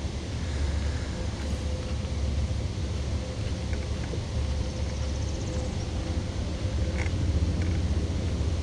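Steady low rumble with a faint steady hum over it, typical of wind buffeting the microphone out on open water, with a few faint ticks about four and seven seconds in.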